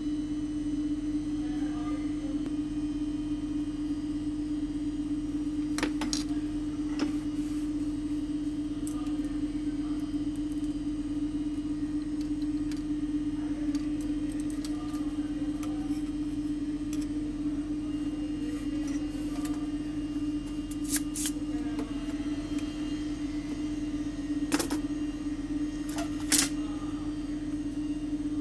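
A steady electrical hum, with a few light clicks of small tools and parts being handled now and then.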